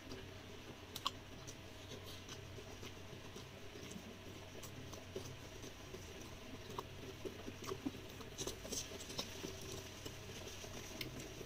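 Faint chewing and small mouth clicks from someone eating rice and vegetables with their fingers, with light ticks scattered through, over a low steady hum.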